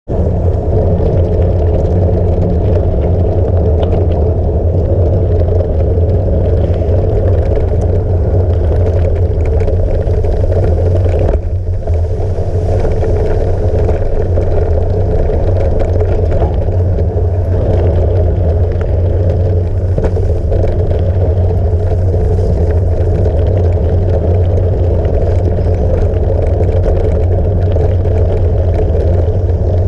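Steady rumble of a gravel bike rolling over a dirt and grass trail, picked up through a GoPro mounted on the handlebar stem cap, so the tyre and trail vibration comes through strongly. It dips briefly about eleven seconds in.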